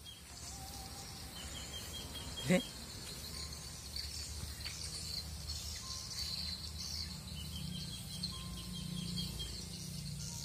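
Many edible-nest swiftlets twittering in high, rapid chirps over a steady low hum, with one short sharp sound about two and a half seconds in.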